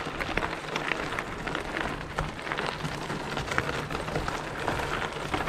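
Gravel bike tyres rolling over a loose gravel road: a steady crackle of small stones under the wheels.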